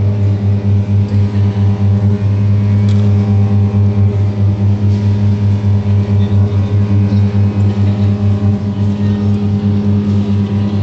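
Double bass bowed on a single low note, held throughout with a rapid pulsing bow that swells and dips several times a second.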